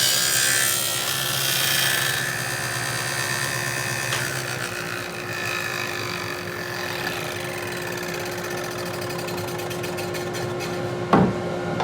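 Table saw with a dado blade cutting a stopped groove in cedar, loudest in the first two seconds. The motor hum stops about four seconds in and the blade winds down, falling in pitch. A sharp knock comes near the end.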